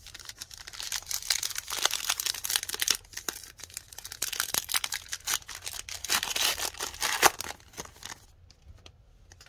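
A trading card pack wrapper being torn open and crinkled, a dense crackling run of tearing and rustling with a sharp snap near the end.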